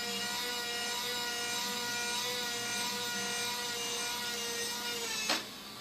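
Small electric motor and gearbox of a remote-control model crane whining steadily as one of its functions runs, then stopping with a click a little over five seconds in.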